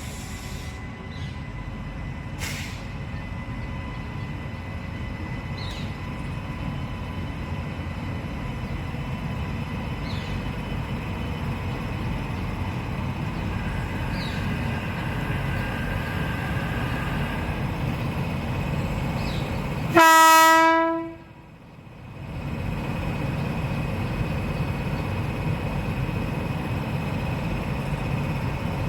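Indian Railways express train running with a steady rumble on the rails, and about twenty seconds in, one short locomotive horn blast on a single steady pitch, the loudest sound here.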